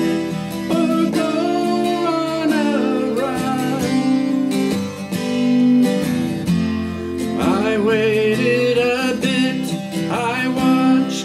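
A man singing, accompanying himself on an acoustic guitar, with the vocal coming and going in phrases over the guitar chords.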